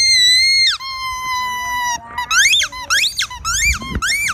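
Pink rubber squeaky toy squeezed by hand. A long, high squeal drops to a lower steady tone a little under a second in. From about halfway comes a quick run of short squeaks, each rising and falling in pitch.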